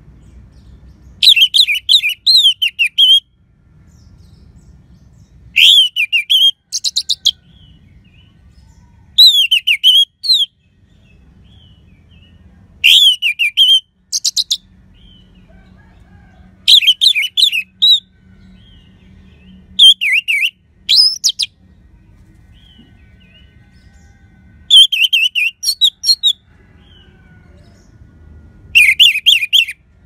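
Orange-headed thrush singing: eight short, loud warbled phrases, each a second or two long, repeated every three to four seconds, with a faint low rumble in the pauses.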